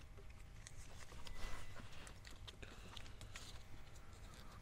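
Faint rustling and small crackling clicks of hands wrapping tape around a truck's wiring harness, with a louder rustle about a second and a half in.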